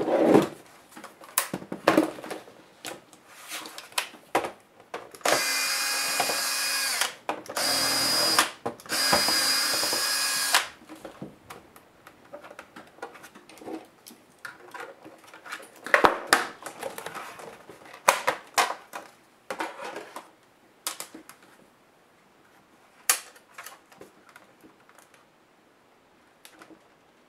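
A small electric screwdriver runs in three short spells, backing screws out of the bottom panel of an Acer 7720 laptop. Around them come sharp clicks and knocks of the laptop's plastic case and metal parts being handled.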